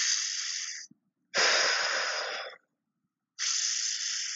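A man breathing deliberately while holding a side plank under effort: three long breaths, each about a second or more, with silent gaps between.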